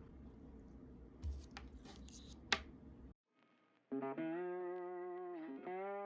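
A few faint clicks and taps over room tone, with one sharp click about two and a half seconds in. After a brief cut to silence, guitar-led background music with held chords starts about four seconds in and is the loudest sound.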